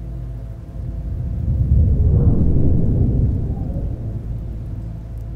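A long roll of thunder rumbles in about a second in, peaks, and fades away over a few seconds, over a steady low drone.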